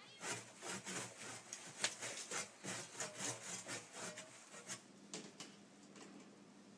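Hand saw cutting through the trunk of a small Christmas tree in quick back-and-forth rasping strokes, which stop about five seconds in.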